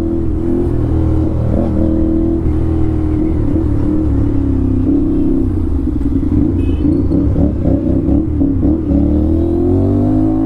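Aprilia RS 457 parallel-twin engine with an SC Project aftermarket exhaust, ridden hard under acceleration. The engine note holds fairly steady, then rises near the end.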